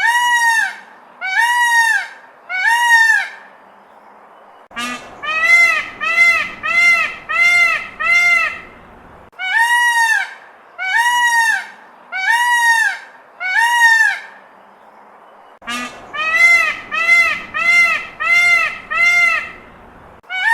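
A goose honking over and over in loud, pitched calls. A run of four slower, higher honks alternates with a run of about six quicker, lower ones, and the pattern repeats.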